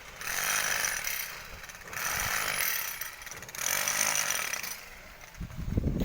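A power tool at a construction site runs in three short bursts of about a second each, less than two seconds apart, with a harsh hiss over a low motor hum. Near the end come a few low thumps.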